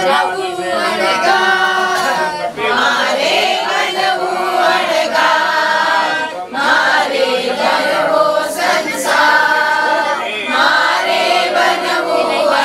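A group of voices singing a devotional song together, holding long, wavering notes.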